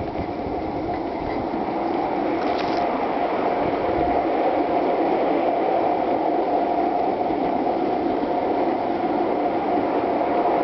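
Gauge one garden railway train running along its track, heard from a car of the moving train: a steady rolling rattle of wheels on rail with a faint constant whine, growing a little louder over the first few seconds.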